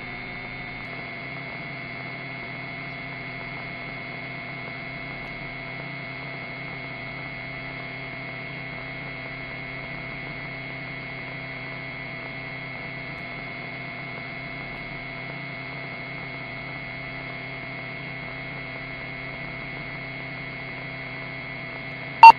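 Steady electrical hum with several fixed tones, unchanging in level, on the aircraft's radio/intercom audio between transmissions; a short click near the end.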